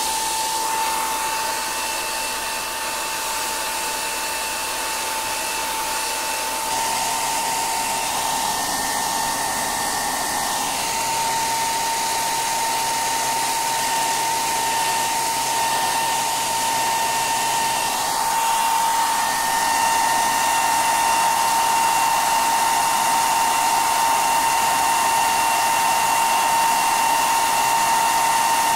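Handheld hair dryer running steadily, blowing air, with a constant whine over the rush of air; it shifts slightly in tone as it is moved and gets a little louder later on.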